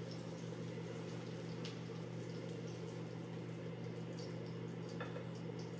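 Salmon fillets sizzling faintly in a nonstick frying pan over a steady low hum, with a couple of light utensil clicks against the pan.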